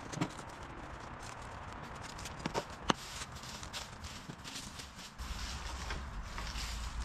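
Loose river stones clacking and knocking together as gloved hands shift them, with rustling and shuffling. A low rumble comes in about five seconds in.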